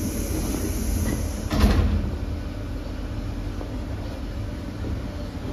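Sliding doors of a Sydney Trains suburban carriage closing with one thud about a second and a half in, after the stand-clear call, over the train's steady low rumble.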